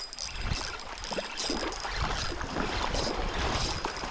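Irregular splashing and sloshing of shallow creek water, with wind rumbling on the microphone.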